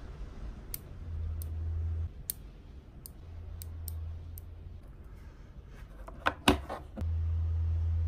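Small magnet balls clicking as they snap onto each other and onto a steel ball bearing: single sharp clicks about every half second, then a louder cluster of snaps about six seconds in. A low hum comes and goes underneath.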